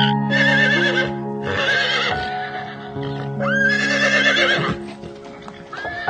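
Alpaca calling: three high, warbling cries of about a second each, over steady background music.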